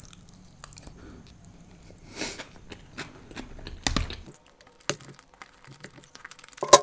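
A person eating macaroni from a spoon: wet chewing with scattered small clicks and a few sharper taps of the spoon, the loudest near the end.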